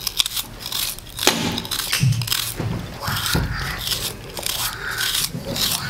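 Kitchen knife cutting through a raw onion held in the hand: a quick, irregular series of crisp crunching cuts.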